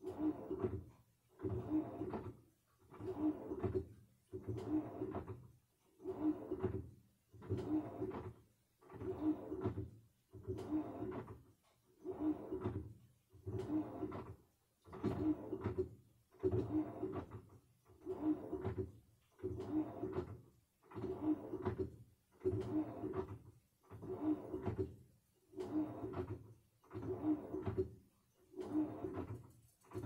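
Samsung washing machine working its wash load back and forth. Each stroke is just under a second of motor hum and swish, repeating evenly about every 1.4 seconds.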